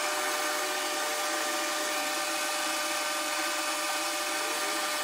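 Metal lathe running at about 200 RPM under power feed, the carbide tool cutting a stainless steel bar: a steady mechanical sound of several even tones over a constant hiss.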